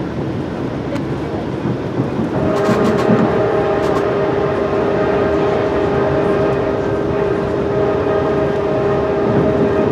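Nathan K5LA five-chime air horn on EMD F59PHI locomotive 1797 sounding one long steady chord, starting about two seconds in and held, heard from the first car behind the locomotive. Under it runs the rumble and clatter of the train rolling on the rails.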